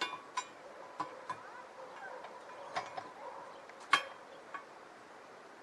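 Steel parts of a homemade chainsaw mill being handled and set in place: a series of sharp metallic clinks and knocks with a short ring, the loudest about four seconds in.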